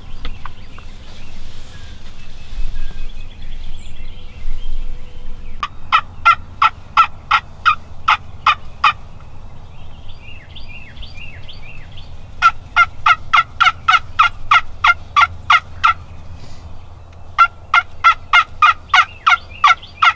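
Wild turkey yelping: three runs of evenly spaced yelps, about three or four a second, the longest run in the middle.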